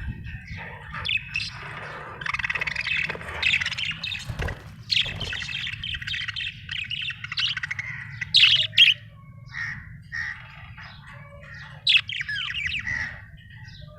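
Budgerigar warbling and chattering without pause, with louder sharp squawks twice, near the middle and again about three-quarters of the way through.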